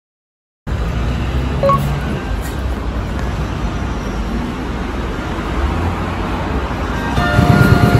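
Brief silence, then a steady low rumble of road traffic. Background music with a beat starts near the end.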